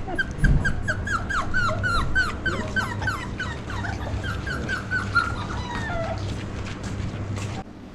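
Puppies yelping: a rapid run of short, high cries, each falling in pitch, about four a second, dying away about six seconds in.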